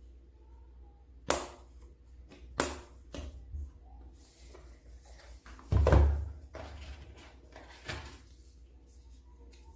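Cardboard card-game box being handled and opened by hand: two sharp clicks in the first three seconds, a louder, longer thump about six seconds in, and another click near the end.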